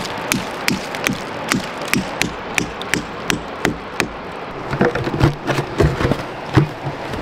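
Hammer tapping a plastic sap spout into a sugar maple's taphole to seat it: a run of light, even taps about three a second, then a few irregular knocks near the end.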